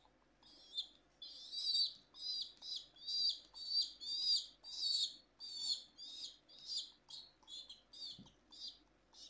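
Baby pigeon (squab) peeping in a rapid run of short, high-pitched begging calls, about two a second, while being hand-fed from a syringe.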